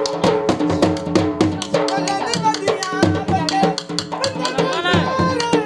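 Punjabi dance music with quick, steady dhol drum strokes under a wavering melody line.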